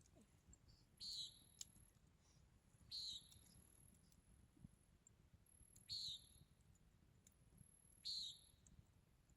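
An unidentified animal's short buzzing call, heard four times a couple of seconds apart.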